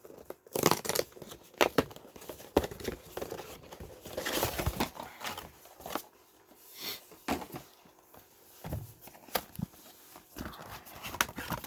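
Packaging of a boxed Commander card deck being torn open and crumpled: crinkling plastic and card with many sharp snaps and clicks.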